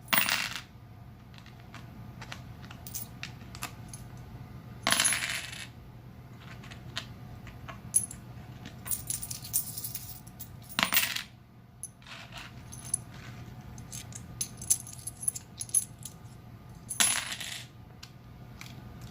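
Quarters dropped and clinking in a by-ear sound test of 90% silver quarters against modern clad quarters, the two sounding only slightly different. Many small metallic clinks with a high ring, broken by four louder rushes of coins about every six seconds.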